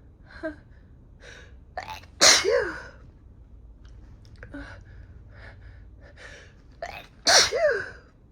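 A woman sneezing loudly twice, about five seconds apart, with short gasping breaths building up before each sneeze. The sneezes are set off by sniffing chhinkni sneezing powder.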